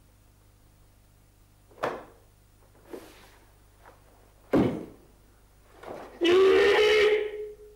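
Karate kata movements: three sharp snaps and thuds from the karateka's gi and bare feet on the wooden floor, the loudest about four and a half seconds in. Near the end comes a loud kiai shout lasting about a second.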